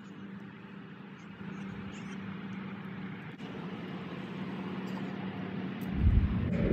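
Golf cart running across the grass with a steady low hum. A loud low rumble swells near the end.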